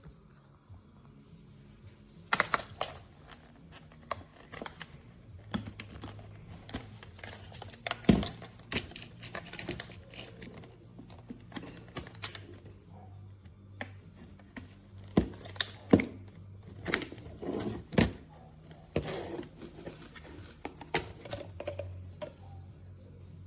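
Irregular clicks, taps and knocks of objects being handled, with a faint steady low hum joining about five seconds in.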